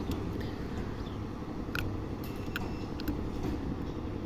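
A few short sharp plastic clicks as the cracked plastic cover of a satellite dish LNB is pulled off, over a steady low background rumble.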